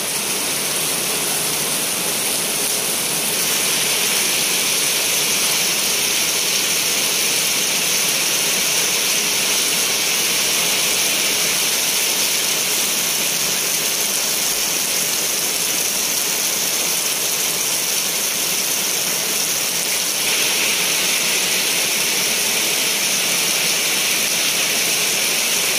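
Steady rain falling on muddy ground and plants, an even hiss that grows a little louder about three seconds in and again about twenty seconds in.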